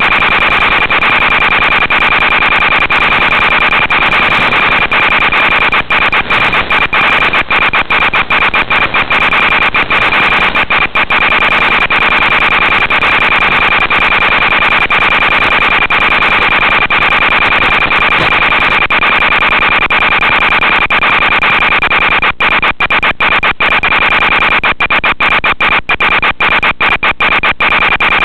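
Loud steady hiss with a constant high-pitched whine from an analog FPV video receiver's audio channel. The hiss keeps cutting out in brief dropouts, in clusters from about six to eleven seconds in and again near the end.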